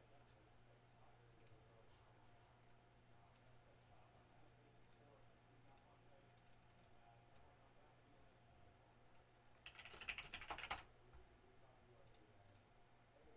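Typing on a computer keyboard: scattered faint key clicks, then a quick run of rapid keystrokes about ten seconds in, over a low steady hum.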